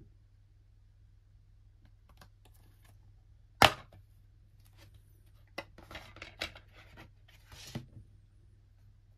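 Black plastic DVD keep case being handled and snapped open, with one sharp loud crack about three and a half seconds in, followed by a string of plastic clicks and rattles as the disc is pried off the case's centre hub.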